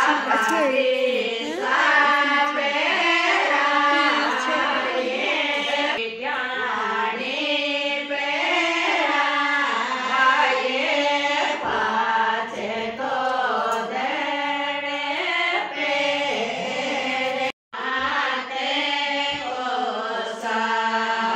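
A song with singing voices in short, repeating phrases, which drops out for a moment about three quarters of the way through.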